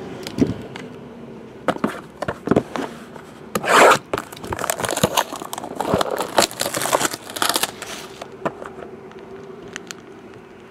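Packaging being torn and crinkled as a sealed trading-card box is opened by hand: a string of irregular rips, rustles and taps, the loudest rip about four seconds in.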